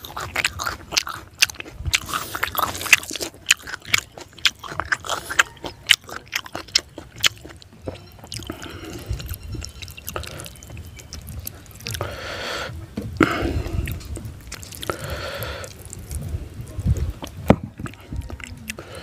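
Close-miked chewing of fried fish and vegetables, with many sharp wet mouth clicks and crunches over the first several seconds. Later come softer squishing and rustling as fingers break open the fried fish head and mix it with rice.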